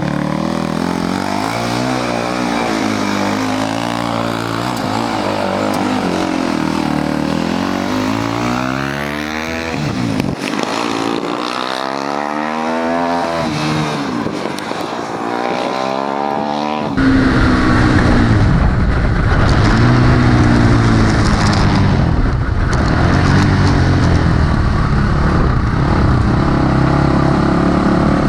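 A 400cc Yamaha single-cylinder dirt bike engine, swapped into a golf cart, revving up and down as the cart is driven and accelerated through the gears, with pitch climbing again and again. About halfway through the sound jumps suddenly to a louder, rougher engine note with rushing noise.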